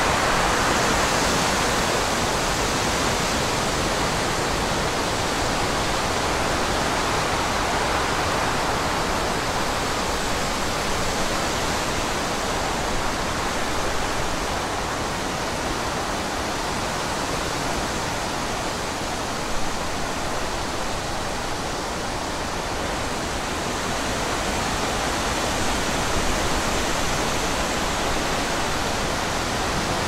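Wind blowing steadily as a broad, even rush with no howling tone. It eases a little through the middle and swells again later on.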